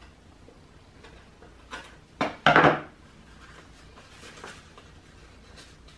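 Scissors trimming paper with a few light snips, then a short, loud clatter about two and a half seconds in as the scissors are put down on the wooden tabletop.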